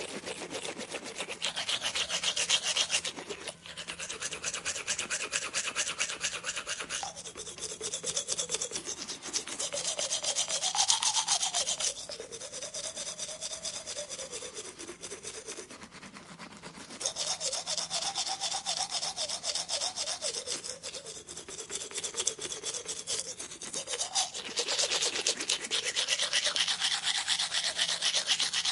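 Dental equipment working on teeth with a fast, steady rasping and grinding, and a faint tone that wavers up and down in pitch. It comes in surges of a few seconds that swell and ease.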